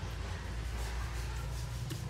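A knife slicing quietly through raw pork on a wooden chopping board, over a steady low hum, with one faint tap near the end and no chopping blows.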